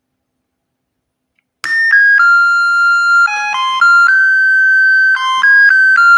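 Homemade BC547 transistor melody doorbell playing its electronic tune. It starts suddenly about one and a half seconds in, with single beeping notes stepping up and down in pitch.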